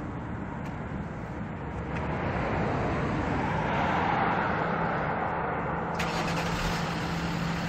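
Hyundai Veracruz's engine running, heard at the exhaust tailpipe: a steady rumble that swells about two seconds in and then holds.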